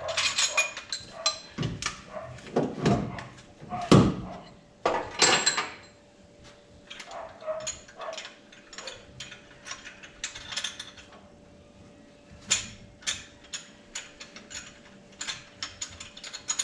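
Hand tools and metal supercharger brackets being worked on an engine: irregular metal clanks and knocks, the loudest in the first six seconds, with runs of rapid small clicks later on.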